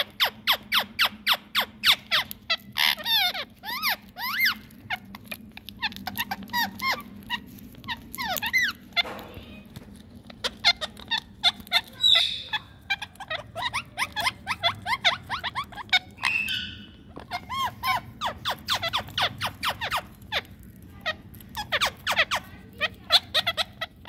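Rose-ringed parakeets calling in rapid runs of short, high chirps, with a few brief pauses, over a faint steady low hum.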